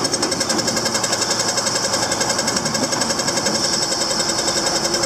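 Krone baler running off a tractor's PTO, its mechanism making a steady, fast, even clatter.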